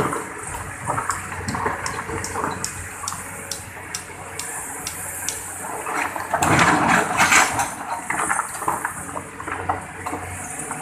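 Water splashing and pouring as an excavator digs into a river bank, with a louder gush about six seconds in and a run of sharp ticks throughout.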